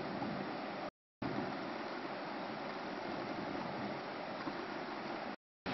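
Steady rush of a shallow river running over rocks, cut off by two brief gaps of silence, one about a second in and one near the end.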